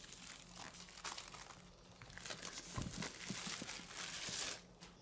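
Tablet packaging being crinkled and torn open by hand, with a few soft knocks near the middle. It is loudest towards the end and stops abruptly just before the end.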